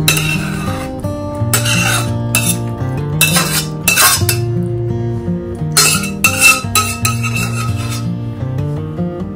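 A spatula scraping and clinking against a stainless-steel pan as squid stir-fry is pushed out into a ceramic bowl: several short scrapes, the loudest about six seconds in. Background music with guitar plays under it.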